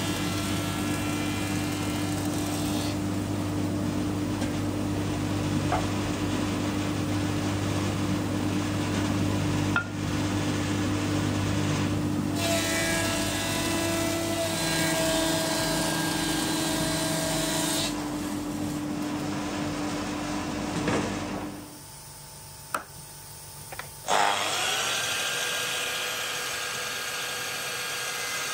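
Axminster planer thicknesser running with a steady motor hum, planing edge-grain cutting board blanks of hardwood in several passes. Near the end it stops, and after a short lull another motor spins up, rising quickly in pitch to a steady run.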